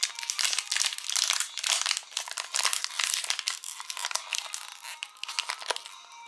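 Thin clear plastic wrapper crinkling as fingers handle and turn it over. The crackle is dense at first and thins out near the end.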